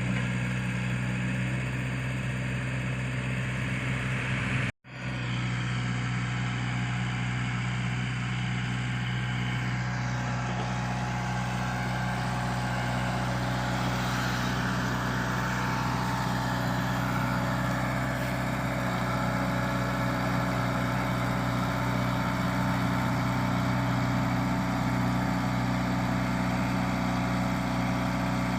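Komatsu PC75UU mini excavator's diesel engine running steadily, with a low, even engine note. The sound drops out for an instant about five seconds in, then resumes.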